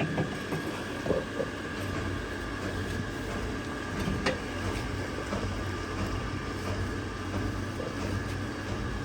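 Steady mechanical drone with a low hum, with a few light knocks about a second in and about four seconds in.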